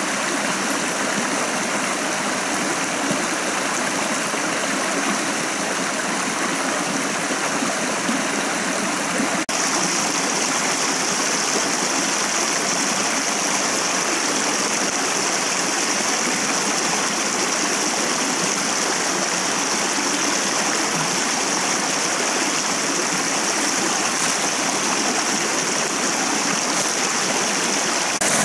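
Steady rushing and babbling of a shallow, rocky forest stream. About nine seconds in it changes abruptly to a slightly louder, hissier water sound.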